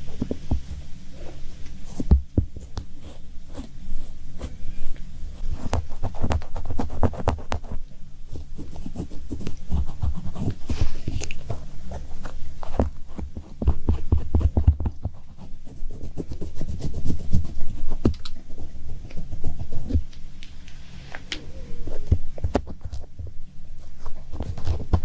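Close-up irregular tapping and clicking in uneven runs, over dull low thuds.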